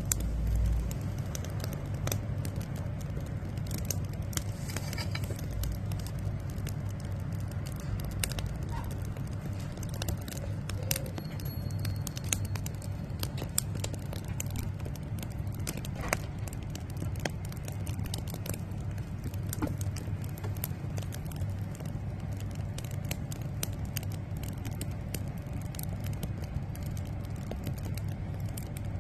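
Firewood burning, crackling and popping with irregular sharp snaps throughout, over a steady low rumble.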